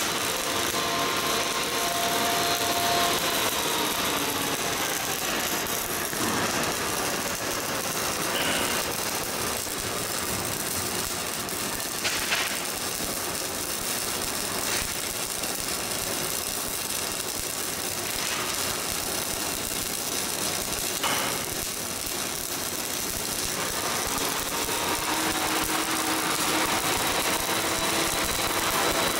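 Stick (shielded metal arc) welding: the electrode's arc gives a steady crackling hiss as a vertical bead is run, with a few sharper pops, the loudest about twelve seconds in.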